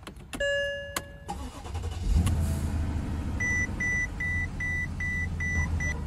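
A short chime, then a car engine starts about two seconds in and settles into a steady idle, while a dashboard warning chime beeps over it about two and a half times a second.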